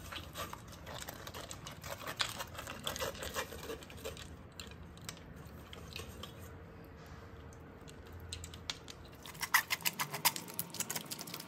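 Metal spoon scraping and pressing soaked tamarind pulp through a stainless steel mesh strainer: a string of quick soft clicks and wet scrapes, with a louder run of scrapes near the end.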